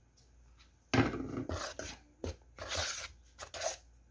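Metal spoon stirring dry flour in a plastic bowl: a run of short scraping strokes starting about a second in.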